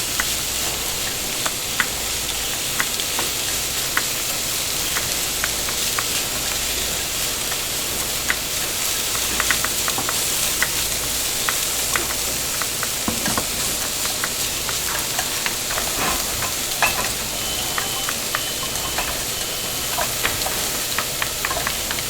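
Restaurant kitchen: food sizzling steadily in hot pans, with frequent short clinks and clatters of utensils and cookware. A thin high tone sounds for a few seconds past the middle.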